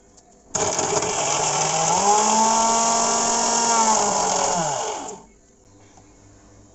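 Electric mixer grinder (mixie) running with toasted bread in the jar, grinding it into crumbs. The motor starts suddenly about half a second in, its whine rises in pitch as it comes up to speed, holds steady, then winds down in pitch and stops about five seconds in.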